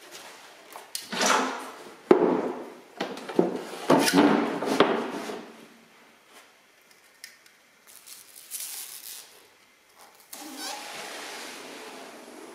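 Knocks, bumps and scraping from a plastic tile mould and sheets being handled on a hand-operated concrete roof tile press, with a cluster of sharp knocks in the first five seconds. Near the end comes a steady sliding scrape as the sheet carrying the freshly pressed concrete tile is drawn across the mould.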